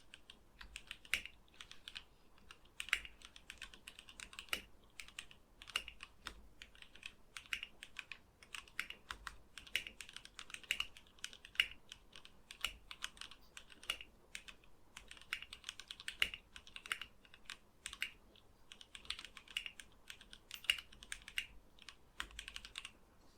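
Fast typing on a plateless mechanical keyboard with lubed and filmed Gateron KS-3 Black linear switches, GSA-profile ABS keycaps and a gasket-mounted wooden case. The keystrokes come in a quick, irregular stream of sharp clicks.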